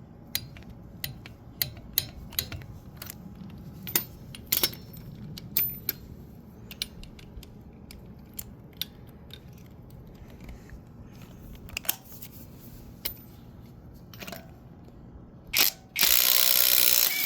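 Scattered clicks and clatter of tools and sockets being handled, then near the end a Hyper Tough 12V 1/4-inch cordless impact wrench runs hammering for about a second, breaking loose a fastener torqued to 40 foot-pounds.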